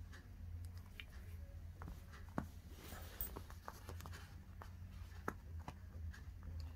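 Faint handling noise of a Huawei Mate 30 RS smartphone being turned over and set down on a wooden table, with fingers rubbing its leather back. Scattered light clicks and taps, the sharpest about two and a half seconds in and again past five seconds, over a steady low hum.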